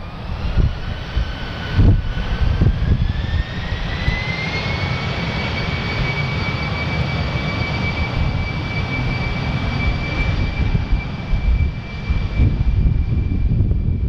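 Airbus A318 jet engines spooling up, their whine rising in pitch over the first few seconds and then holding steady at high power, as when thrust is set for a takeoff. Wind gusts buffet the microphone.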